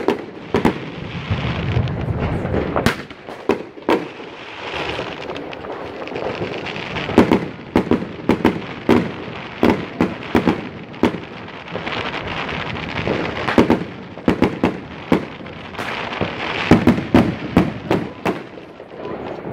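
Fireworks going off: firework rockets bursting in many sharp bangs at irregular intervals, some in quick clusters, over a continuous din of more fireworks further off.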